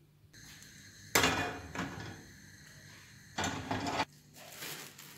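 Cookware knocking against the iron grates of a gas stove: a sharp, loud clank about a second in that rings briefly, then a second clatter a little past the middle that stops abruptly.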